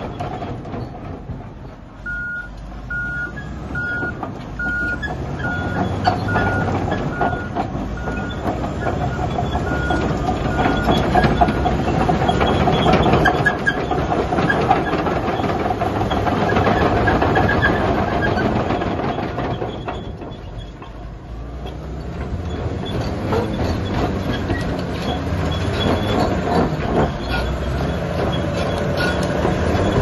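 Komatsu D375A crawler bulldozer's diesel engine running under load as the machine moves and turns. For about the first ten seconds a reversing alarm beeps steadily, about twice a second.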